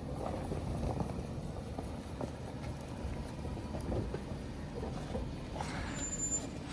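An off-road vehicle's engine running low and steady as it crawls over a rocky trail, with scattered short knocks.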